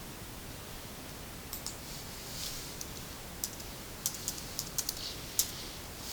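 Faint, scattered small clicks and a couple of soft rustles over a steady hiss, the clicks coming more often in the second half.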